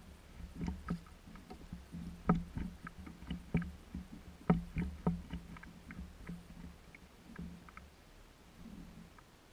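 Irregular knocks and taps on a Hobie kayak's plastic hull and gear as the fishing rod and landing net are handled during a fight with a fish. The two sharpest knocks come about two seconds in and about halfway through, over a low rumble that fades in the second half.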